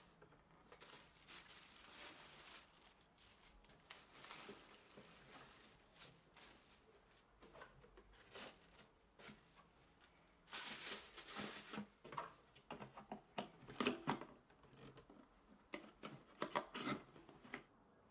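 Shoe box and packing being handled and opened: faint, irregular rustling of paper and cardboard with light clicks and knocks, loudest in a longer burst of rustling about ten seconds in.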